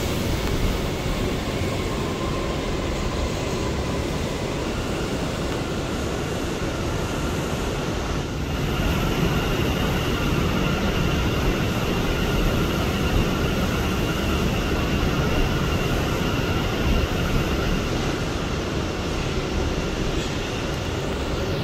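R179 subway car in motion, heard from inside the car: a steady rumble of wheels on track with a faint steady high whine over it, growing a little louder about eight seconds in.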